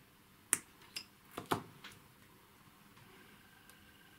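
Side cutters snipping the wire of a security seal: one sharp snap about half a second in, then several smaller metallic clicks as the cut wire and seal are handled.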